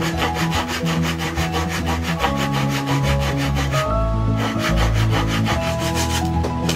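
Fine-toothed hand saw cutting through a wooden board in quick, even back-and-forth strokes, about four or five a second. It pauses briefly about four seconds in, then resumes. Background music plays underneath.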